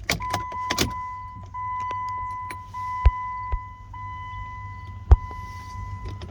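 A circuit tester giving a steady high electronic beep, held with a few brief breaks, as it picks up current on the starter relay control wire. Two sharp knocks sound about three and five seconds in.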